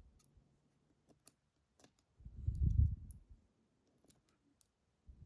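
Scattered light metallic clicks of tweezers and small lock pins being set back into a lock's plug. A dull low thump about two and a half seconds in is the loudest sound.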